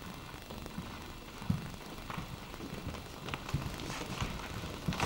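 Quiet room sound with scattered soft knocks and taps at irregular intervals.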